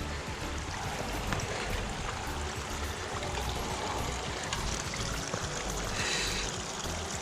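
Storm runoff rushing steadily down flooded rock steps on a mountain trail.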